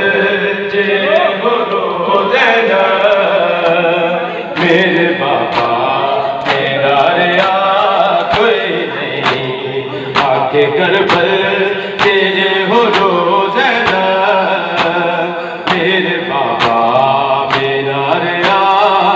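Men chanting a Muharram nauha, a mourning lament in a wailing melody, with sharp slaps of hands striking bare chests in unison about once a second as the matam beat.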